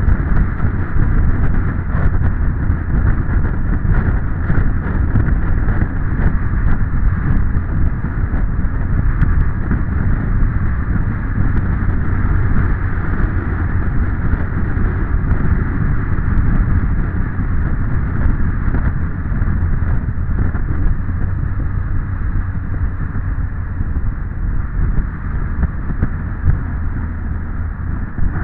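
Wind rushing over the microphone of a motorcycle-mounted camera at road speed, with the motorcycle's engine running steadily underneath as a low drone.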